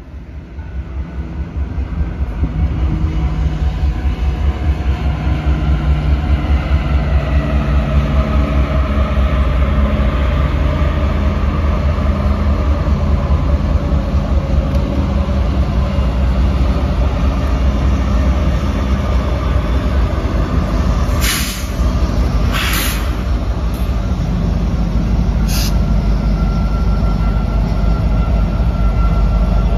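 Norfolk Southern diesel train passing close by, its deep rumble growing louder over the first few seconds as it approaches, then the cars rolling past with a steady rhythmic clatter. Three short, sharp noises cut through a little after two-thirds of the way in.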